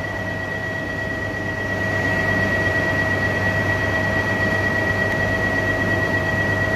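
A stationary E3-series Shinkansen train's equipment running at the platform with its doors open: a steady low hum with a constant high-pitched tone over it, in a reverberant underground station.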